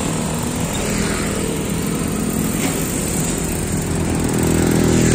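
A small engine running steadily, with a low, even hum and no revving.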